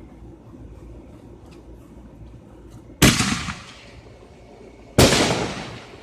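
Two loud firework bangs about two seconds apart, each dying away over roughly half a second to a second.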